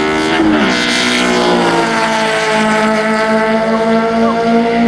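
Two compact race cars, one a Honda Civic sedan, accelerating hard side by side down a drag strip, engines at full throttle. Their pitch drops sharply about half a second in, then holds a steady, slowly climbing note as they pull away.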